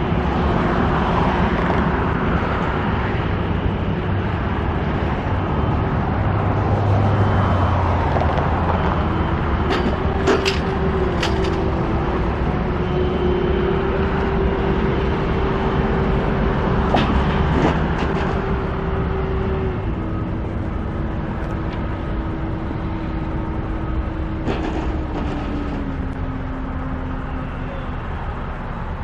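Heavy construction machinery engine running steadily over a constant rumble, its pitch stepping up about ten seconds in and stepping down twice later on. A few sharp metallic clinks come around ten and seventeen seconds in.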